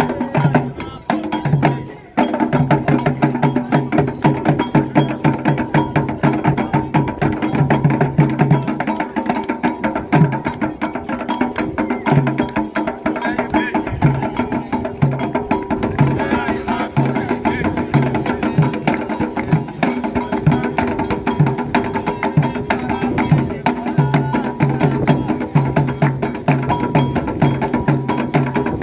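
Candomblé percussion: atabaque hand drums playing a fast, dense toque with sharp, clacking strikes over repeated low drum beats, coming in at full strength about two seconds in.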